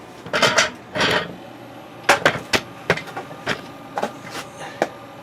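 Handling noises: two brief scuffs, then a run of about ten irregular sharp clicks and knocks of hard objects.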